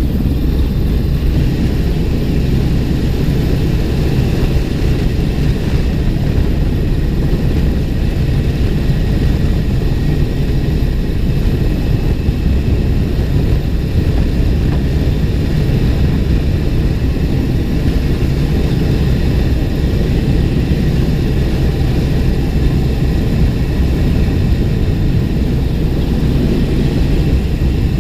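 Steady heavy drone of a CH-149 Cormorant search-and-rescue helicopter hovering, its rotors and three turbine engines heard from the open cabin door, with a faint high whine over the low rumble.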